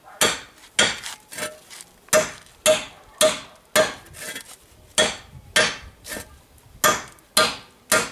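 Hammer blows on the slit end of a rusty steel pipe, about two strikes a second, each with a short metallic ring. The cut end is being hammered in to narrow it so that it fits inside another pipe.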